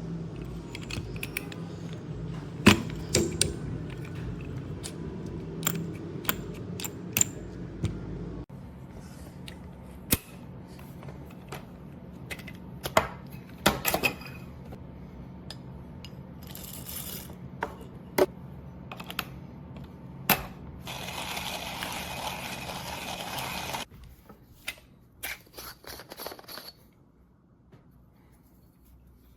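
Small hard parts clicking and clinking as they are handled, over a low hum that drops away about eight seconds in. A hissing rustle lasts about three seconds past the middle, followed by a few quieter clicks.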